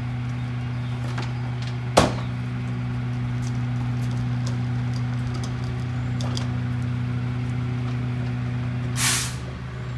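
Garbage truck's diesel engine running steadily with a low hum. There is a sharp bang about two seconds in and a brief hiss near the end.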